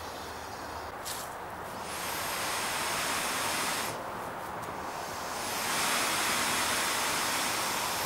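Air hissing out of a Seahawk inflatable boat's valve as the chambers are pressed down to deflate it, in two long rushes about two seconds apart, after a short click about a second in.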